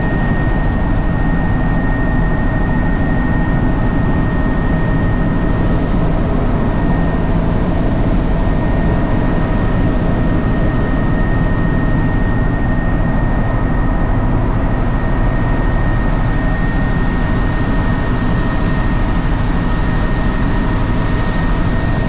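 Helicopter's engine and rotor running steadily, heard from inside the cabin: a constant low rumble with a steady high whine above it.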